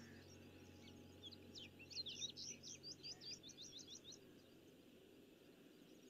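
Birds chirping faintly: a quick run of many short, high chirps about a second in, thinning out by the middle, over a faint steady hiss.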